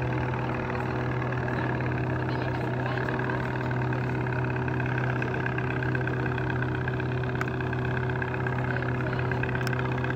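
An engine running steadily at a constant speed: a low hum with a few steady tones above it and no change in pitch or level.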